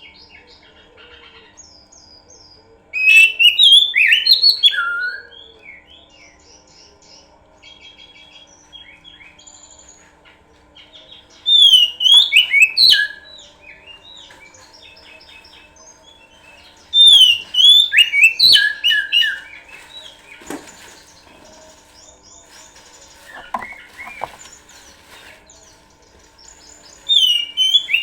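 Oriental magpie-robin (kacer) singing: loud phrases of varied, rich whistles and trills come four times, with softer chirps in between, the kind of song played to lure or provoke other kacer into singing.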